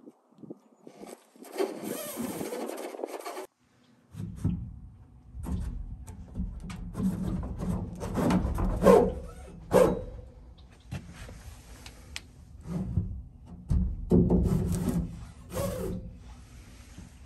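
Threaded steel rod being pushed through drilled holes in wooden posts, its threads scraping and rubbing against the wood, with a few sharp knocks. The sound stops briefly a little after three seconds in.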